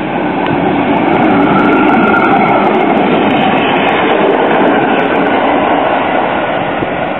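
A Croydon Tramlink Stadler Variobahn light-rail tram passing close by on its rails, getting louder as it comes alongside, loudest about two seconds in, then slowly fading as it draws away.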